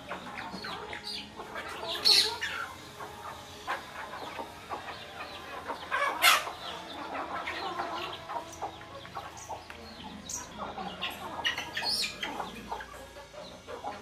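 Flock of country chickens clucking as they feed, a run of short calls with several sharper, louder cries standing out about two and six seconds in.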